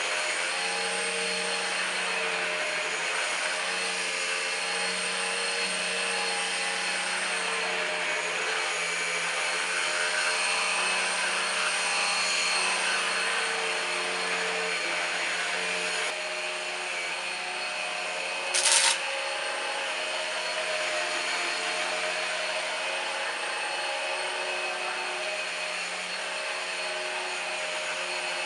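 Numatic Henry Quick cordless stick vacuum running steadily as it is pushed over the floor, a motor whine over a low hum. About two-thirds of the way through its sound eases slightly, and shortly after there is one brief sharp burst.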